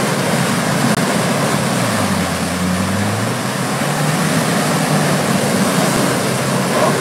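Land Rover Defender 90 P300's 2.0-litre turbo four-cylinder engine pulling under load through deep mud and water, with a steady rush of churning, splashing mud. The engine note dips about two seconds in, then climbs again.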